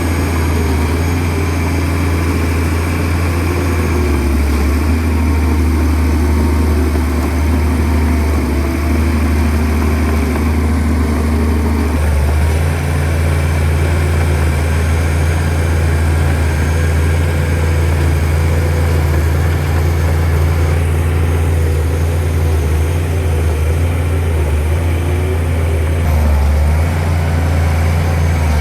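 Shantui DH17C2 bulldozer's diesel engine running steadily with a deep low hum, its engine note shifting about twelve seconds in.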